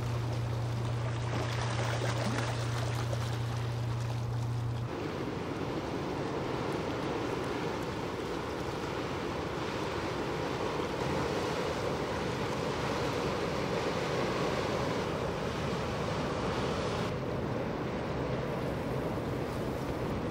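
A tanker passing with a steady low engine hum over water noise. About five seconds in, this gives way to an even rushing of bow wash and wind as a large car carrier moves past.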